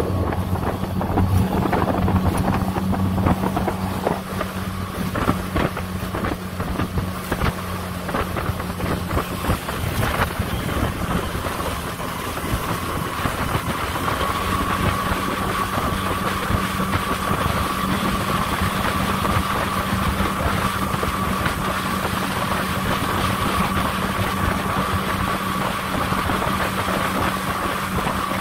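Suzuki DF20A four-stroke EFI outboard, a two-cylinder 20 hp motor, running steadily at speed and pushing a small boat through choppy water, with wind and splashing water over it. From about halfway a higher steady whine comes up over the engine note.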